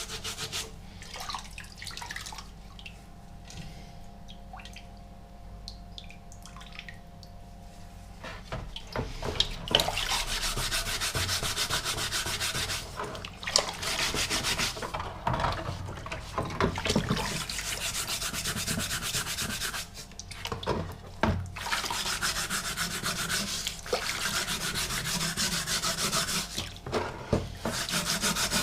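Scrubbing the steel shell of a German M40 helmet with an abrasive dish sponge after its oxalic acid bath. The scrubbing is quieter for the first several seconds, then goes on harder from about eight seconds in, in runs of a few seconds with short pauses.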